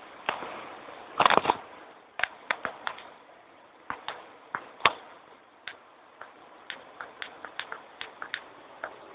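Heavy storm drops tapping irregularly on a hard surface close to the microphone: sharp ticks, roughly two or three a second, with a loud cluster about a second in, over a faint hiss of rain.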